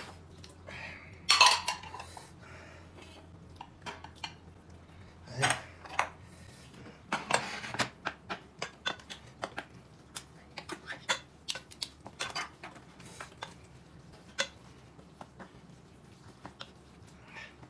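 Eating utensils clinking and knocking against dishes in irregular short taps, with a few louder knocks scattered through.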